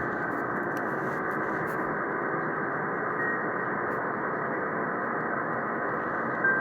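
Single-sideband receiver audio from the RS-44 satellite downlink: a steady hiss that cuts off above about 2 kHz, with weak stations faintly heard in the noise. A short whistle from a carrier comes in about three seconds in.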